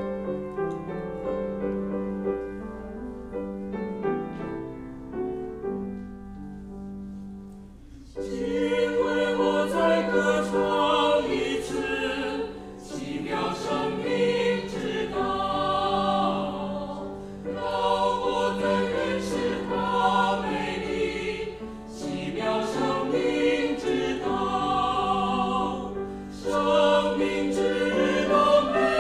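A small mixed church choir singing a hymn in parts, entering about eight seconds in after a piano introduction and carrying on with accompaniment, in phrases that swell and ease every few seconds.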